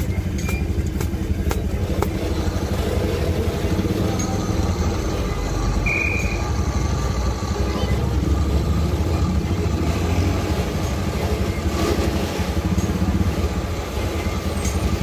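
An engine running steadily at a low, even pitch, with scattered light clicks and a brief high beep about six seconds in.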